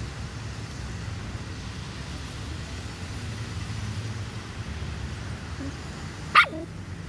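A dachshund gives one short, high bark that drops in pitch, about six seconds in, over a steady low background rumble.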